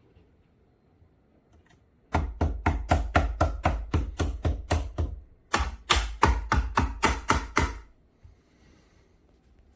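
Rapid knocking, about five knocks a second, in two runs of a few seconds each with a short break between.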